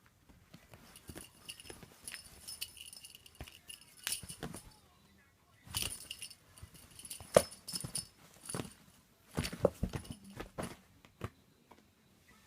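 A small bell jingling in short bursts amid irregular rustles and knocks, the loudest knocks in the second half.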